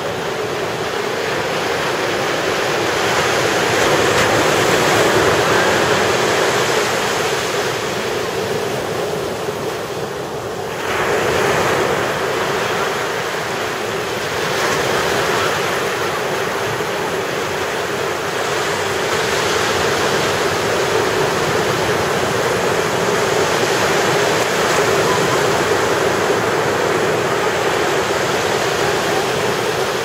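Ocean surf breaking and washing up a sandy beach: a steady rushing that swells and eases with each wave, with a fresh wave crashing in about eleven seconds in.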